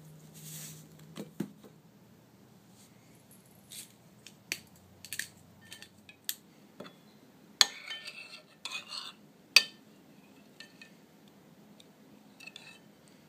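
Metal spoon clinking and scraping against a ceramic bowl while stirring a wet herb-and-olive-oil mixture, in irregular clinks, the two loudest about two seconds apart near the middle.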